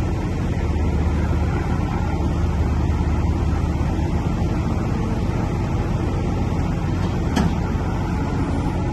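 Engine of the lifting machine running steadily with a low rumble, and a single sharp knock about seven seconds in.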